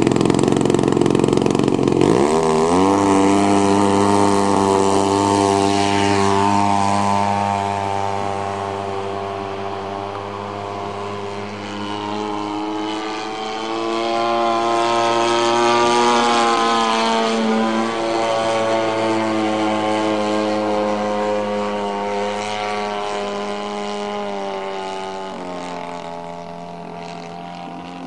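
XYZ 50cc two-stroke gas engine of a 27% CAP 232 RC model plane, turning a Xoar 20x8 propeller. It runs low on the runway, throttles up sharply about two seconds in for the takeoff, then runs steadily at high throttle in flight, its pitch bending as the plane passes and the sound slowly fading with distance, and throttles back near the end.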